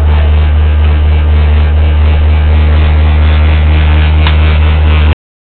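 A loud, steady low hum inside a moving cable car gondola, cutting off abruptly about five seconds in.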